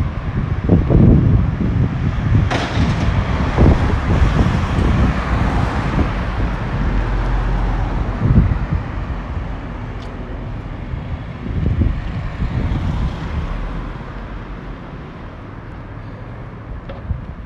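Low, steady vehicle rumble with a few scattered knocks, swelling a little over two seconds in and fading gradually over the last few seconds.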